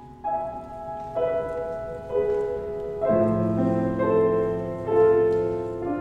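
Grand piano playing slow classical chords, a new chord struck about once a second and left to ring.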